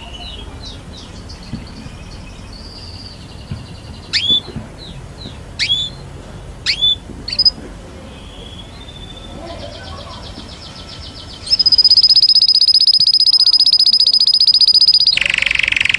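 Canary singing: scattered short whistles and sharp downward-swooping chirps, then, about three-quarters of the way through, a loud, very fast rolling trill held for several seconds that switches to a lower trill near the end.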